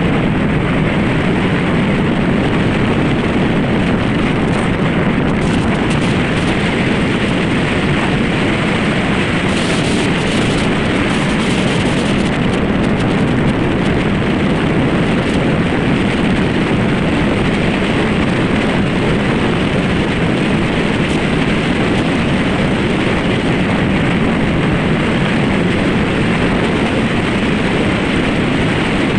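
Steady rushing noise of an SUV on the move: road and wind noise, level throughout.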